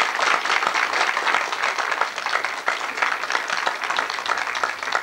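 Audience applauding: many hands clapping at once in a dense, steady patter that begins to thin out at the very end.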